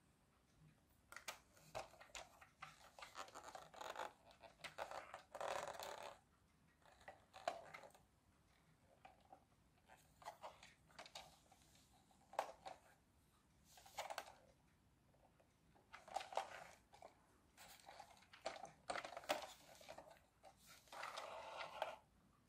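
Faint scraping and rustling as a plastic toy tractor is handled and turned over, with short bursts coming and going every second or two.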